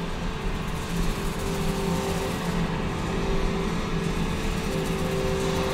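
A steady, loud electronic drone: dense rushing noise with low humming tones that come and go, a stage sound effect under a darkened scene.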